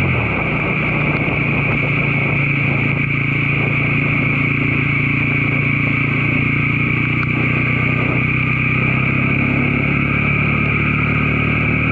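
Motorcycle engine running at a steady speed while riding, under a constant rush of wind and road noise.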